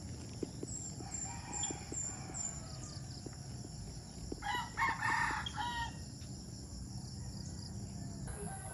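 A rooster crows once, about a second and a half long, near the middle. Steady high insect hum and a quick run of five short high chirps near the start sit behind it.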